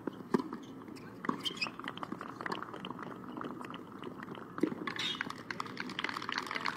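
Tennis ball struck by rackets: a sharp serve hit about a third of a second in, then single hits of a short rally. From about five seconds in comes a dense patter of short clicks over a low background murmur.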